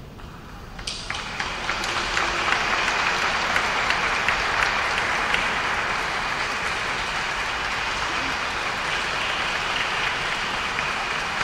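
Audience applauding, starting about a second in, swelling over the next second, then holding steady.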